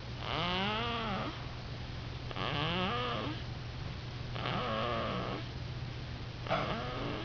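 Baby snoring: four pitched snores about two seconds apart, each rising and then falling in pitch. A steady low hum runs underneath.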